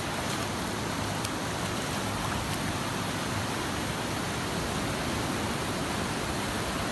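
Surf washing up on a sandy beach: a steady, even rush of breaking waves.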